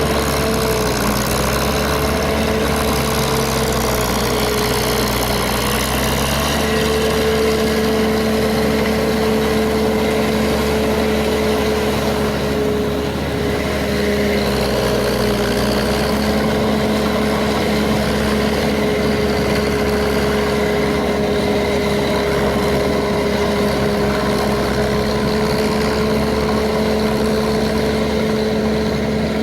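Paddy field tractor engine running steadily at a near-constant speed while ploughing a wet paddy field.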